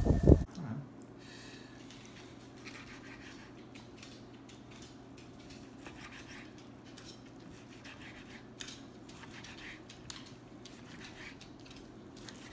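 Loud outdoor noise cuts off about half a second in. After that come faint, scattered clinks and scrapes of cutlery against plates, over a steady low room hum.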